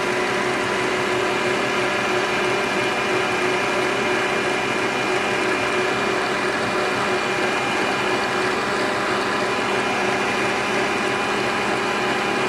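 Stand mixer running steadily at high speed, its whisk beating egg sponge-cake batter in the bowl: a constant motor whine over the whirr of the beating.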